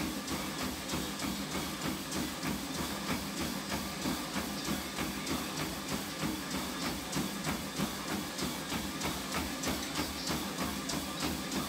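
Running footfalls landing in a steady rhythm on a motorised treadmill belt, over the steady hum of the treadmill motor.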